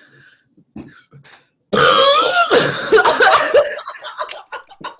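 A woman's loud forced burp, starting suddenly about two seconds in, that cuts off quickly and breaks into coughing and laughter.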